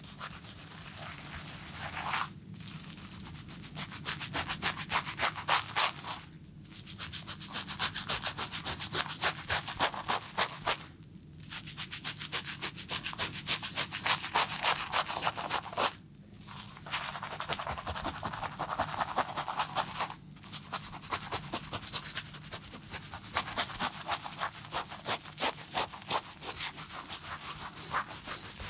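Barber's hands rubbing briskly over the body in a massage: quick rubbing strokes, several a second, in runs of a few seconds broken by short pauses.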